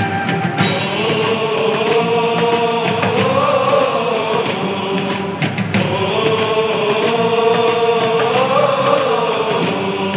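Men of a church choir singing a Malayalam Christmas carol together in two long phrases, each rising and falling in pitch, with a short breath about halfway.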